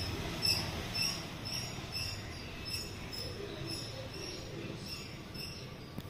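A small animal chirping over and over, short high chirps about two a second, over a low steady rumble.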